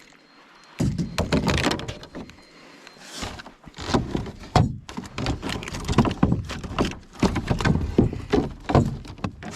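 A rapid, irregular run of knocks and thumps: a caught pike thrashing against the boat while it is being unhooked.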